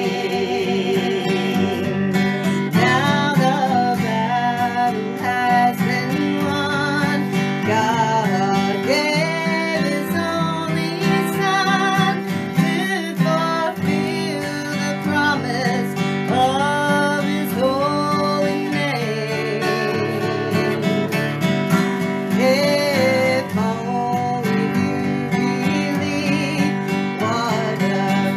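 Acoustic guitar strummed through a country gospel song, carrying the melody, with a voice singing along at times.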